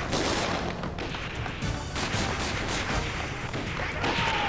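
Gunfire in a battle: many shots in quick succession, overlapping, with music underneath.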